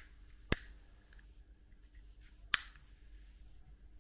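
Two sharp plastic clicks about two seconds apart, with a few fainter ticks between them, from a Winchester rotary rifle magazine being pressed together in the hands.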